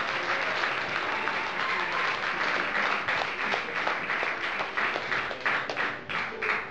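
Audience applauding at the end of a bluegrass band's performance, the clapping thinning out near the end.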